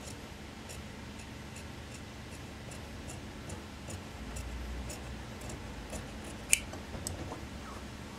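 Large tailor's shears cutting through suit jacket fabric, the blades giving short clicks about twice a second. One much louder sharp clack about six and a half seconds in.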